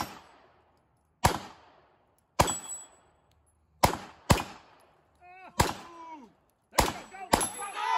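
Glock 48 9mm pistol firing seven shots at an uneven pace, about a second apart with a couple of quick pairs. Each shot is sharp and followed by a short echo.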